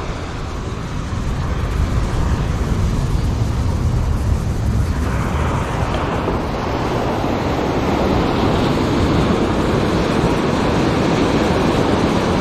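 Steady rushing of breaking surf washing up the beach, with wind rumbling on the microphone; the low rumble is strongest in the first five seconds, then the broader wash of the waves takes over.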